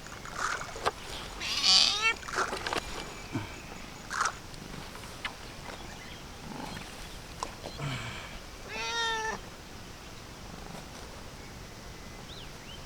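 Dragon Li (Chinese tabby) cat meowing twice: a short high meow about two seconds in and a longer one about nine seconds in, with a few light clicks between.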